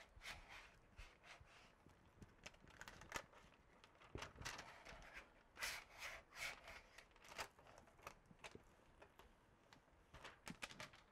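Faint, irregular scraping strokes of a small hard tool rubbed across a BuildTak adhesive sheet, pressing it flat onto the flex plate.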